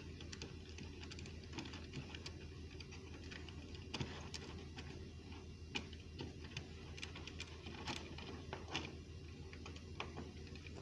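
Faint, scattered clicks and taps of a plastic PROFIBUS connector and its cable being handled, with a few sharper clicks, over a steady low hum.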